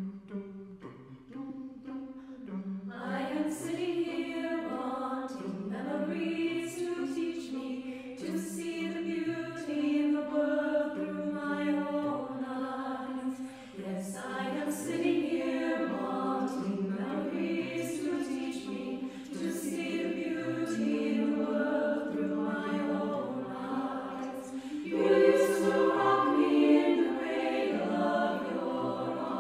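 Mixed choir singing a cappella in close harmony. It starts softly with only a few voices, the full choir comes in about three seconds in, and it grows louder near the end.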